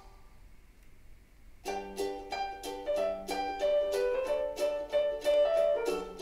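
Background music of quick plucked notes. It is nearly silent for about the first second and a half, then the tune starts up again.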